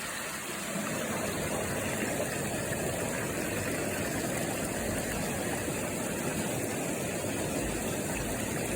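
Steady rush of water from a waterfall and its cascades, an even noise with no breaks.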